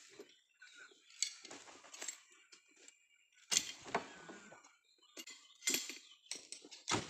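Oil palm fruit bunches being tossed onto a truck's bed, landing in several sharp knocks and clatters at irregular intervals, the loudest about three and a half seconds in.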